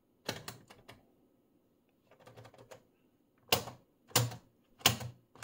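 Mechanical clicks of the piano-key pushbutton switches on a Radiometer BKF6 distortion meter being pressed and latching. A quick cluster of clicks comes near the start and a softer bunch around the middle, then louder single clicks about two-thirds of a second apart.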